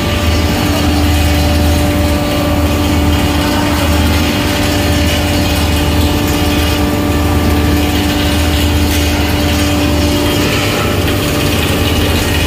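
Belt-driven hammer mill pulverizer with its cyclone blower running steadily while grinding maize into feed meal: a loud, even hum with a constant tone over it.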